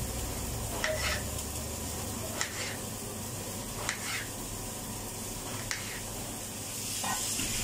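Kitchen knife slicing through an eggplant onto a cutting board: a few soft, short cutting knocks a second or two apart, over a steady hiss.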